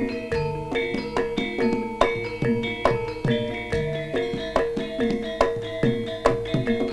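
Javanese gamelan music accompanying a jaranan dance: tuned metal instruments struck in a fast, steady pattern of ringing notes, with drum strokes and a low note that recurs every few seconds.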